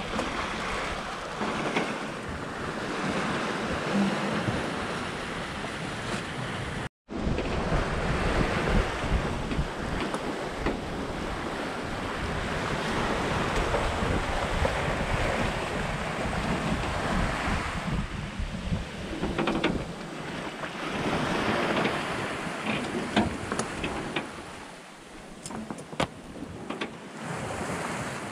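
Wind buffeting the microphone and sea rushing along the hull of a sailing yacht under way, swelling and easing with the waves. The sound drops out for an instant about seven seconds in, and a few light clicks come near the end.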